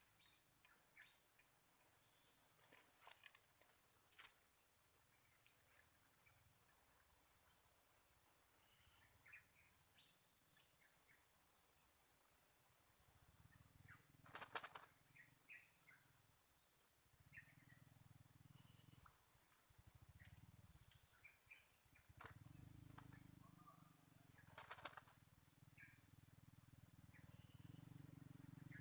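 Faint outdoor ambience: a steady high-pitched insect drone with scattered short bird chirps and a few light clicks. A low rumble comes and goes in the second half.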